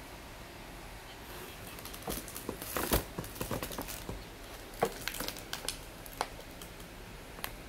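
Handling noise from fingers gripping and shifting a smartphone over a glass tabletop: a string of irregular small clicks, taps and rustles, loudest about three seconds in, over a faint steady hiss.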